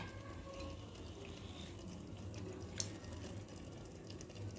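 Faint trickle of lemon juice from a metal hand-press lemon squeezer into the pot, with one light click a little under three seconds in.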